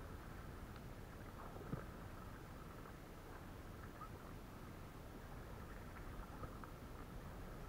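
Faint steady water noise around a kayak, with a light knock about two seconds in.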